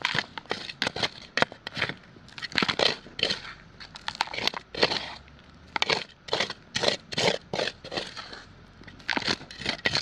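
Repeated short crunching sounds coming in irregular clusters, with brief pauses between them.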